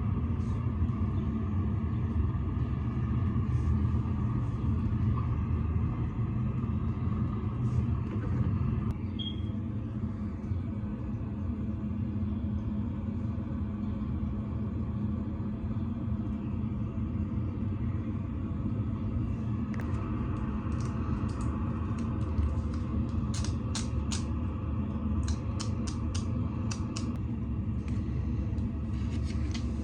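A steady low rumble throughout, with a quick run of light clicks and taps about three-quarters of the way in.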